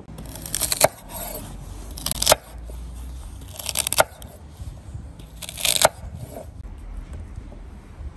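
Chef's knife slicing through a bundle of celery stalks on a wooden cutting board: four crisp crunching cuts about a second and a half apart, each ending in a knock of the blade on the board.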